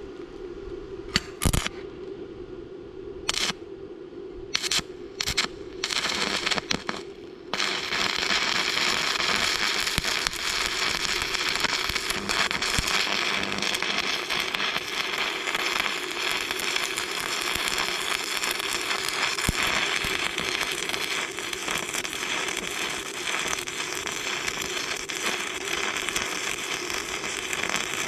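A few sharp knocks, then from about seven seconds in the steady crackle of a stick-welding arc on thick steel plate.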